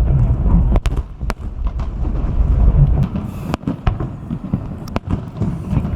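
Aerial fireworks bursting: a string of sharp bangs and crackles over a low rumble.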